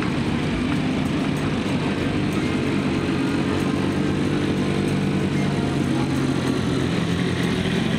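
Small quad bike (ATV) engine running steadily at an even speed, with no revving.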